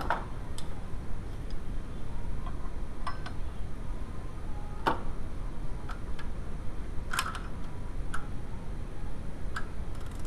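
Scattered light metallic clicks and taps of a wrench being worked on the crankshaft bolt of a VW 2.0L ABA engine, about eight spread unevenly, over a low steady background hum.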